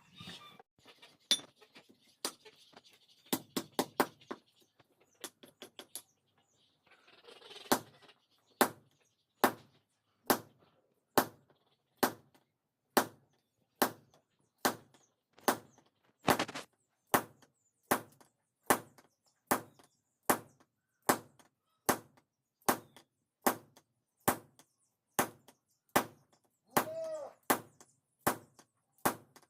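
Hand hammer striking hot steel from a vehicle leaf spring on an anvil while forging a blade: scattered clusters of blows at first, then a steady beat of about one blow a second. One blow near the end rings briefly.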